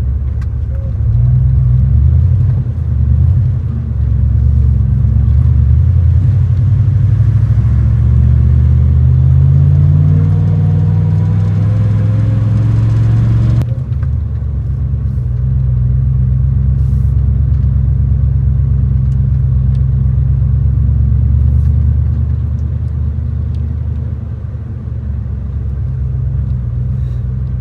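Gasoline 3/4-ton pickup truck engine running under load, its note climbing steadily for several seconds, then dropping suddenly about halfway through and settling into a steady rumble.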